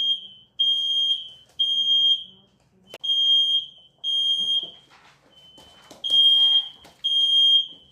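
Fire alarm going off: a high-pitched electronic beep repeating about once a second, each beep about half a second long, with a single knock about three seconds in.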